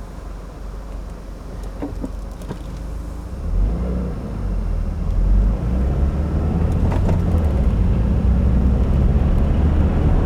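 Inside the cabin of a 2015 Subaru WRX driving on a snowy, slick road: a steady low engine and tyre rumble that grows louder about three and a half seconds in, with a few faint clicks.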